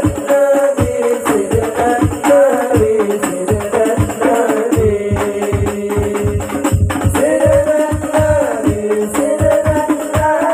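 A hadroh ensemble of hand-struck rebana frame drums playing a fast interlocking rhythm, with deep strokes from a large bass frame drum, under a group of male voices singing a sholawat melody.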